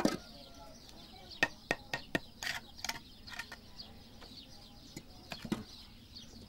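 Sharp knocks, taps and short scrapes of a trowel, bricks and wet mud mortar as bricks are laid in mud, clustered in the first half with a longer scrape about two and a half seconds in. Birds chirp steadily in the background.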